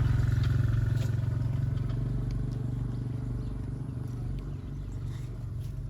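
An engine running steadily with a low, fast-pulsing hum that slowly grows quieter, with a few faint clicks over it.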